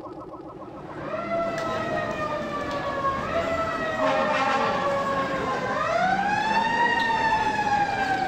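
Emergency sirens wailing, at least two overlapping, coming in about a second in and slowly falling and rising in pitch.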